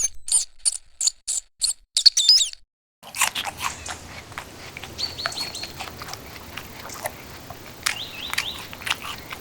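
Mouse squeaking sound effect: a quick run of about seven short, high squeaks, then after a brief gap more scattered squeaks and chirps over a steady hiss.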